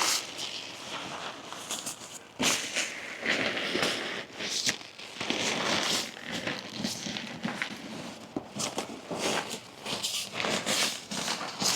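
Shower tent fabric rustling and crinkling in irregular bursts as the floor and walls are rolled up tightly by hand.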